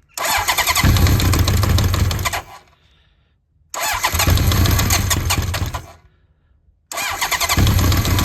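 Honda CB900F 985cc big-bore four-cylinder engine being cranked on the electric starter in three bursts of about two and a half seconds each, without catching: a cold start after months of standing, on Keihin FCR33 flat-slide carburettors that have no choke.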